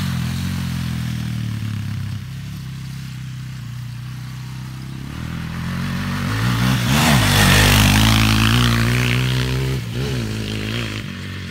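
Quad bike (ATV) engine running steadily, then revving up about halfway through and easing back, with a rush of noise at its loudest point.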